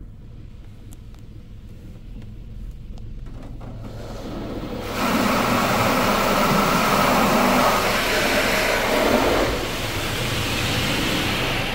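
High-pressure water jets of a D&S IQ touch-free car wash gantry spraying the car, heard from inside the cabin: a low rumble, then about five seconds in the spray hits with a loud, even rush of water on the roof and glass, easing a little near the end.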